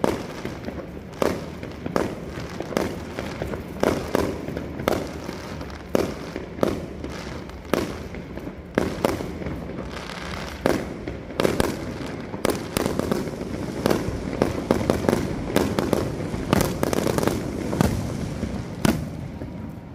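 Fireworks bursting in a steady string of sharp bangs, about one a second at first, then coming thick and fast in the second half before the last bang just before the end.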